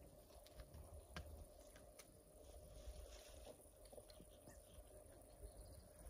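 Near silence: faint outdoor morning ambience with a faint steady hum and a few soft clicks.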